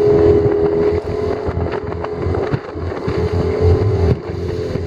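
Yamaha 20 hp outboard motor running under way, a steady drone that wavers and dips a few times, with wind rushing over the microphone.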